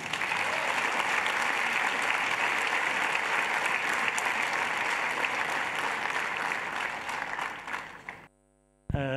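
Large audience applauding, a dense, steady clapping that runs for about eight seconds and then cuts off suddenly near the end.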